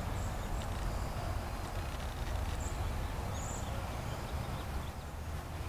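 Outdoor background noise with a steady low rumble, and a few short, high bird chirps: one right at the start and two more about halfway through.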